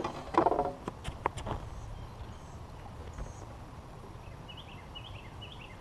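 A quick series of knocks and clatters on the boat's deck in the first second and a half as a fish is handled aboard. Then steady low outdoor noise, with a small bird chirping a few times near the end.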